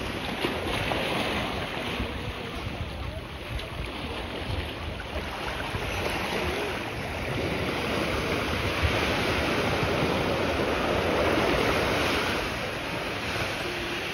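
Small waves washing ashore, with wind rushing over the microphone; the wind grows louder in the second half.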